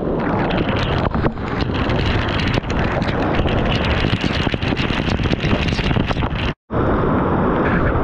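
Cave waterfall pouring down right beside the microphone: a loud, steady rush of falling water, with drops and spray spattering on the microphone as many sharp ticks. The sound cuts out for an instant near the end.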